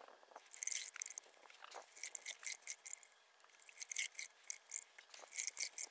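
Wet cloth diapers being squeezed and wrung out by hand in a bucket of soapy rinse water, making a run of short, irregular wet squelches and crackles.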